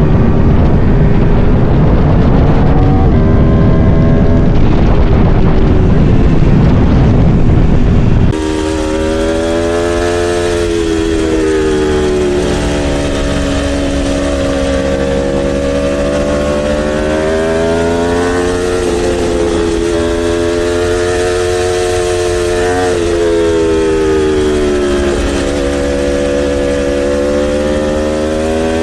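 Motorcycle engine running while riding, first heavily buffeted by wind noise on the microphone. About eight seconds in, the sound switches abruptly to a much cleaner recording, in which the engine note rises and falls repeatedly as the bike accelerates and eases off.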